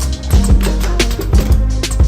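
Background music with a steady beat: a drum kit over sustained bass notes.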